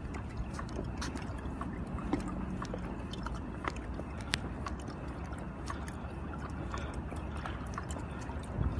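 Pedal-driven inflatable stand-up paddleboard moving through water: a steady low rush of water with scattered light ticks.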